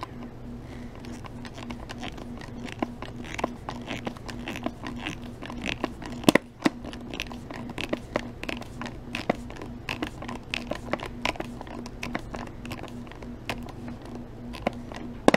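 Screwdriver turning small screws into the plastic back case of a Fluke 87 III multimeter: a run of small irregular clicks and scrapes, with one sharper click near the middle, over a steady low hum.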